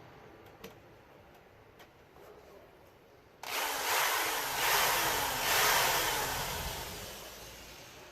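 Power drill starting suddenly a little over three seconds in, boring to widen a pin hole in a school bus's back door, then gradually fading away.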